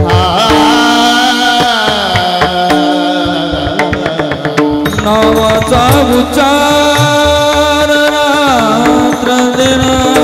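Warkari kirtan devotional music: a drawn-out sung melodic line over a steady drone, with small brass hand cymbals (taal) clashing in rhythm and occasional drum strokes.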